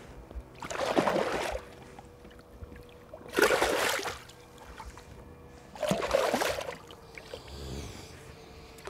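Water splashing three times, each splash under a second and about two and a half seconds apart, over a faint steady hum.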